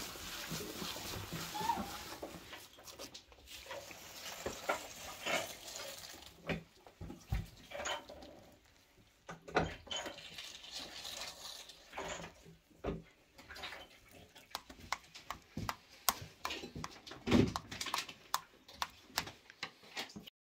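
Irregular handling sounds of sausage-making: hands squelching through minced liver-sausage filling, then scattered knocks and clicks as the filling is fed through a sausage stuffer into casing and handled on a wooden table.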